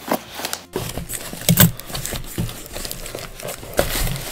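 Cardboard box being torn open by hand: flaps and packing tape tearing and crinkling in irregular rustles, with a louder rip about a second and a half in.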